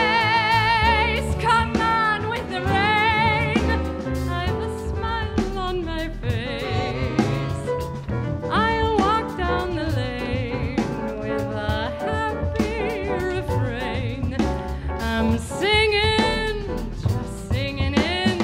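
A female jazz singer singing with vibrato, backed by a live jazz band of piano, upright bass, drums and horns.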